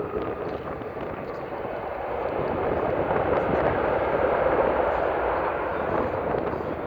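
Jet noise from the Airbus Beluga XL's two Rolls-Royce Trent 700 turbofans as it lands. The broad rushing rumble swells to its loudest about halfway through, then eases off.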